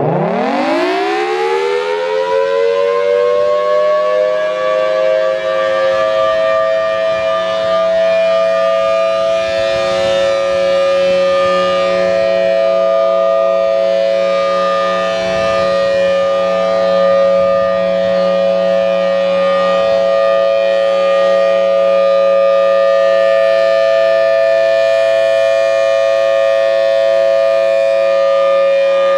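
Federal Signal Thunderbolt 1003 outdoor warning siren winding up from a low pitch to full speed over the first few seconds. It then holds a loud, steady two-tone alert signal, the Full Alert steady tone, as its horn rotates.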